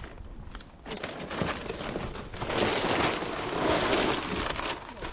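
Cardboard boxes and plastic snack bags being rummaged through and handled, a crinkling, rustling noise that comes and goes in loudness.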